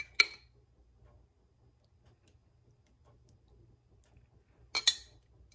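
Metal spoon clinking against a glass jar as sauce is scraped out: one sharp clink just after the start and a quick double clink near the end.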